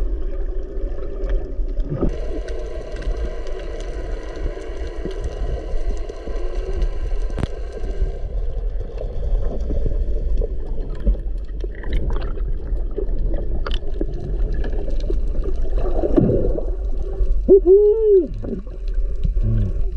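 Underwater sound heard through a submerged camera: a steady low rumble and water noise with scattered clicks. From about two to eight seconds in a faint steady whine with several overtones runs beneath it, and near the end there is a short muffled call that rises and falls in pitch.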